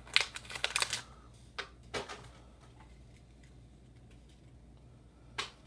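Small objects being handled: a quick flurry of clicks and rustling in the first second, two more clicks around two seconds in, and a single click near the end, over a faint steady low hum.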